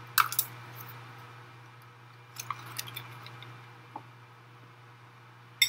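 A few scattered light clicks and taps of a utensil against a glass mixing bowl, over a steady low hum.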